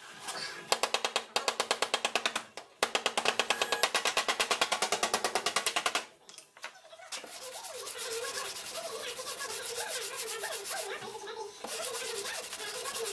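Dented front fender of a Toyota Avensis being tapped out from behind with a hammer: two runs of rapid, even taps that stop about six seconds in. Then the panel is sanded by hand, a steady scratchy rubbing.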